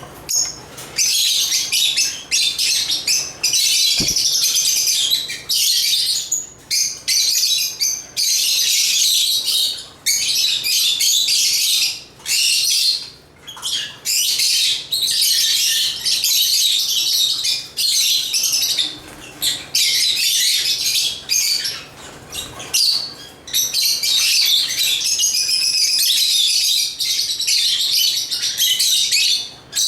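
African lovebirds (Agapornis) chattering: dense, high-pitched chirping in long bouts of several seconds, broken by short pauses.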